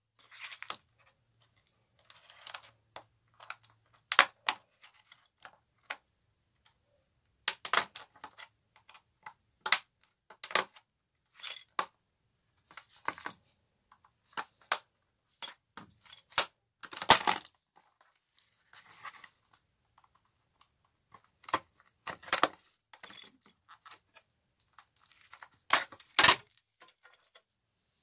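Plastic snaps, clicks and short scrapes as a tablet's plastic back shell is pried apart by hand, its clips letting go; the sounds come one after another at uneven intervals, some sharp and loud.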